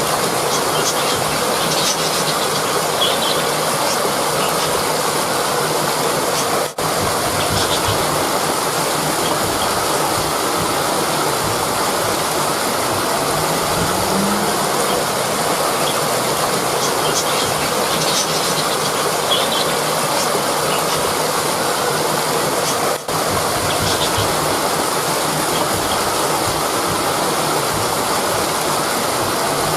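Rushing river water flowing steadily, a continuous even roar of moving water, with two very brief dips in level.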